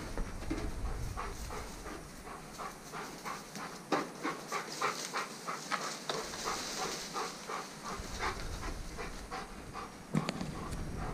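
Belgian Malinois panting rapidly and steadily, about three to four breaths a second, while working a search. A single sharp knock sounds about ten seconds in.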